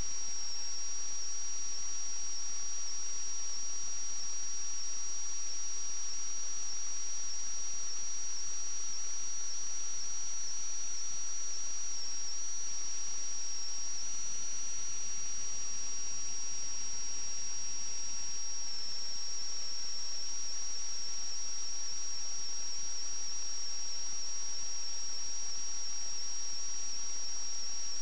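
Steady high-pitched electronic whine over constant hiss, with no other sound. It is two close tones that step slightly in pitch now and then: electrical noise on a sewer inspection camera's recording.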